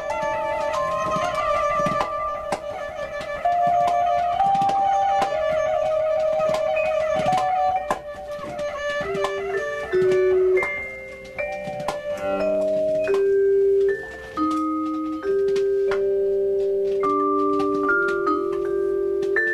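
Freely improvised acoustic music: quick plucked-string notes with mallet percussion in the first half, giving way to long ringing vibraphone notes that step from pitch to pitch.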